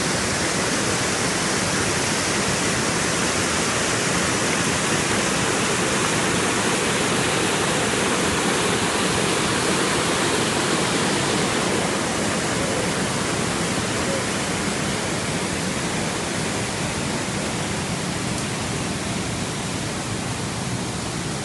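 Mountain stream rushing over rocks in a steady loud rush of water, easing a little after about twelve seconds.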